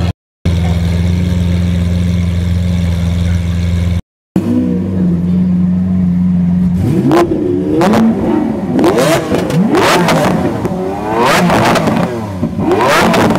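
Lamborghini Aventador V12 idling steadily. After a cut, a second Aventador on its stock exhaust idles, then from about seven seconds in gives a run of six or so quick revs, each rising and falling sharply.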